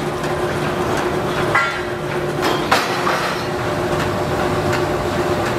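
Heavy steel rolling mill machinery running with a steady drone, with a few sharp metal clanks, about one and a half and two and three-quarter seconds in.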